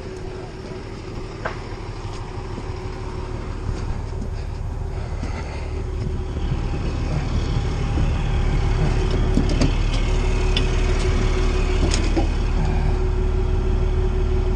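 A large vehicle engine, such as a fire engine's, running steadily. It grows louder over the first eight seconds or so and then holds, with a few sharp clicks and knocks around the middle.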